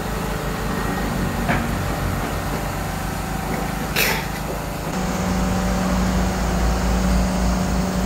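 A steady machine hum runs with a low rumble, and water splashes briefly about four seconds in as a soaking-wet dog is hauled out of the pond, water pouring off its body.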